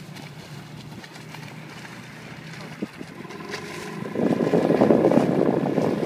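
Small outboard boat motor running steadily at low speed, with wind on the microphone. About four seconds in, a much louder rushing noise sets in over it.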